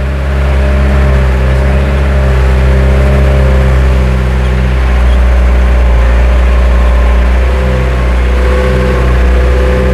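Truck engine running steadily while driving, heard from inside the cab, its pitch shifting slightly a few times.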